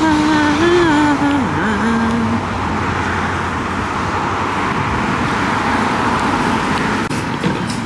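Steady road and engine noise of a car being driven. Over the first two seconds a short wordless vocal phrase holds and bends a note above it.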